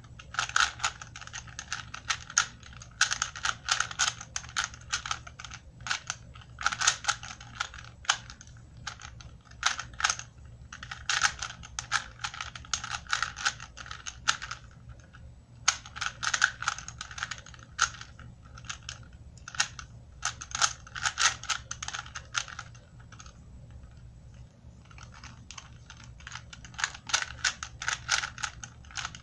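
Rubik's-brand cube being turned by hand: a rapid clicking clatter of plastic layers in runs of a few seconds each, with short pauses between.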